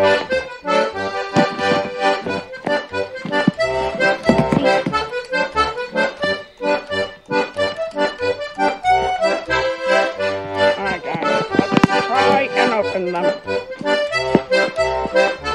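Instrumental background music with a melody over a pulsing bass line.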